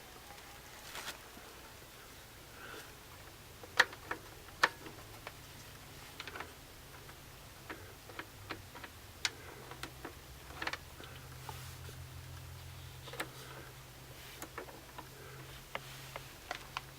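Irregular light clicks and taps at an uneven pace, as of the plastic telephone and radio set being handled and its buttons pressed. A faint steady low hum runs underneath.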